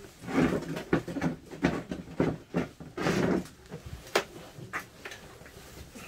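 An animal's calls: a quick, irregular run of short, loud calls in the first three and a half seconds, then three sharp knocks.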